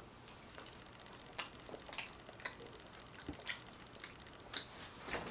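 Irregular soft clicks and smacks of close-miked eating and food handling: mouth sounds and a ketchup packet and paper wrapper being handled.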